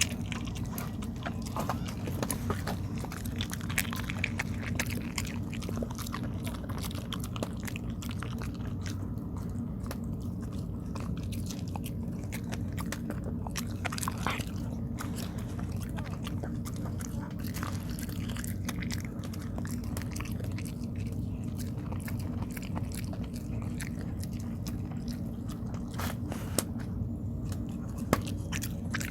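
A dog chewing and eating tteok (Korean rice cake), with many short clicks and smacks of teeth and jaws throughout, over a steady low hum.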